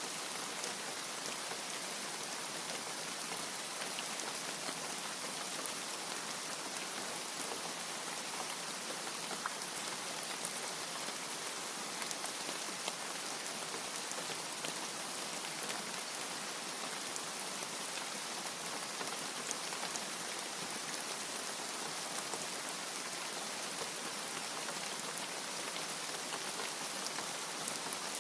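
Steady rain: an even hiss of falling rain with scattered sharper ticks of single drops, level throughout.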